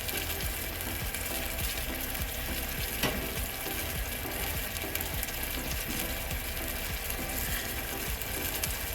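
Butter sizzling in a hot pan: a steady crackling hiss with one sharper click about three seconds in.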